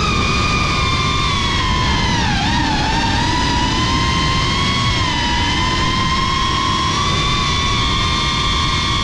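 Brushless motors and propellers of a Cinelog 35 FPV cinewhoop drone whining in flight. The pitch dips briefly about two and a half seconds in and then holds steady, over a low rushing noise.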